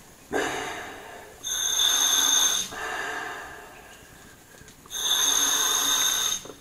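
Slow, rhythmic breathing close to the microphone: a rougher rushing breath alternating with a high whistling hiss, each about a second long, with the whistle coming twice.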